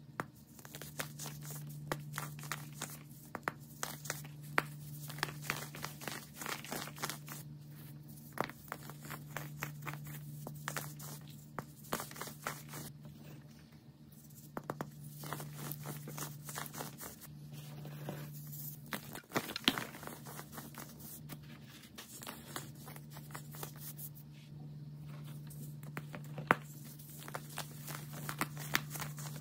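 Dried baking soda starfish shapes being crushed and crumbled between the fingers: a dense run of small dry crunches and crackles, with powder crumbling away. A steady low hum lies underneath.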